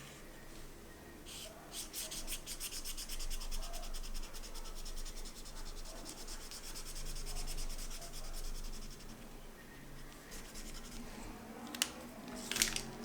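Felt-tip marker colouring on paper in quick back-and-forth scratchy strokes, fast and steady for most of the time, then easing off, with a couple of sharp clicks near the end.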